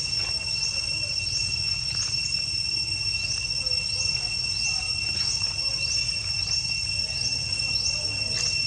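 Insects calling: a steady high-pitched drone with short rising chirps repeating about twice a second, over a low rumbling background noise.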